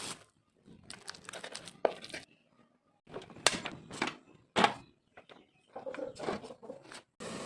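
Short bursts of crinkling and tearing with a few sharp knocks, broken by brief silences, as food is handled and prepared in a small room.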